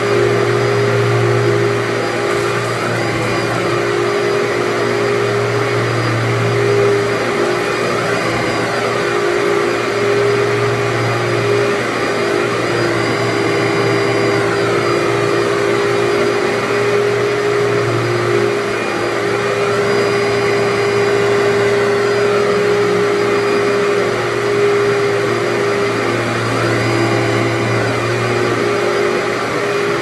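Commercial upright vacuum cleaner running steadily as it is pushed back and forth over carpet. Its motor holds a steady whine over a low hum that swells and fades every few seconds.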